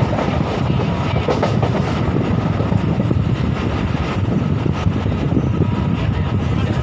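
Passenger train running at speed, heard from inside the coach: a steady rumble and rattle of the wheels on the track.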